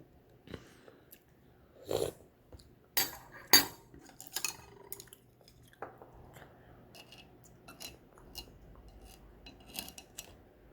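Someone eating ramen: utensils clinking and scraping against the bowl, with chewing sounds between, in a series of short irregular clicks and bursts.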